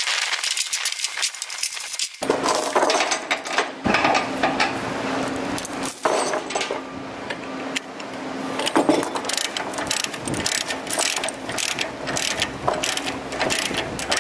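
Ratchet chain binder being cranked, its pawl clicking in quick runs with chain links rattling as the chain is drawn tight to secure the load.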